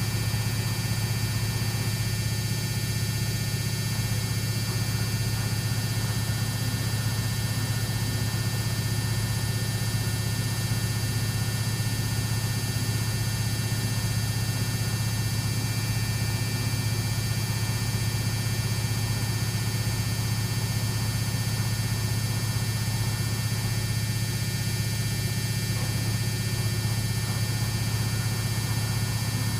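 Samsung WF6700 front-loading washing machine's brushed AC motor and drum spinning at a steady speed, giving an even, constant hum with a faint high whine.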